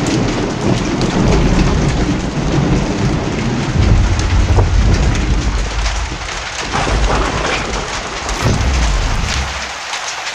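Heavy rain pouring down, with sharp drops hitting close by and a deep rolling rumble of thunder that comes in about a second in and dies away near the end.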